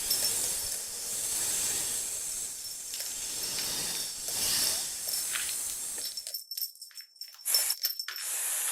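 Snake hissing sound effect: a long breathy hiss, broken about six seconds in by a quick run of short rattling bursts, then a second hiss near the end.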